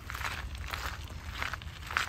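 Footsteps of people walking on a path, about two steps a second, over a steady low rumble.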